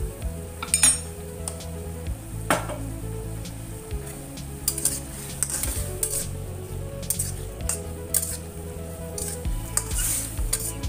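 Metal spatula stirring a saucy stir-fry in a stainless steel wok, scraping and clinking against the pan over a steady sizzle. There are a few knocks early on, and the clinks come faster about halfway through.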